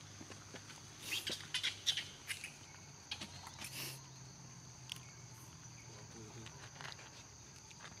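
Steady high-pitched drone of insects, such as crickets or cicadas, with scattered short clicks and chirps, clustered about a second in and again near the middle.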